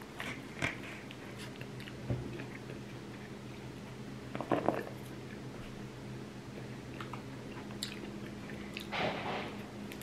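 Someone biting and chewing pizza, with a few short crunchy bites of crust, over a steady low hum.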